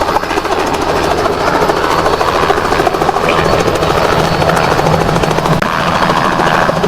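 Helicopter landing close by: the fast, even chop of its rotor blades over a steady low engine hum.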